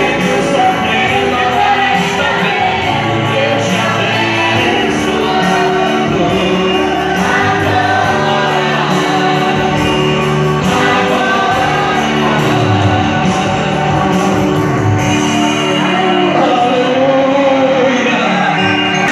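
Live worship song: a man singing into a microphone, accompanied by chords on a Yamaha electronic keyboard.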